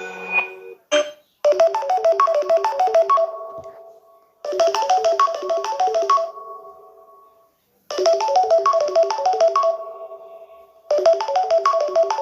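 Samsung Galaxy A32 ringtone playing: a short synth-keyboard phrase of quick notes that ends on a fading held note and repeats about every three seconds, four times. The last notes of a different tone die away at the very start.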